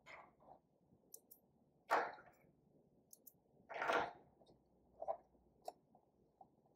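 Short rustles and clicks from fabric and thread being handled at a stopped sewing machine, the two loudest about two and four seconds in.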